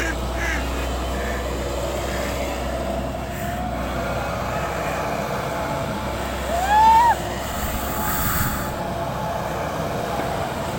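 A JCB backhoe loader's diesel engine running steadily. About two-thirds of the way through, a brief high tone rises and falls over it, and this is the loudest moment.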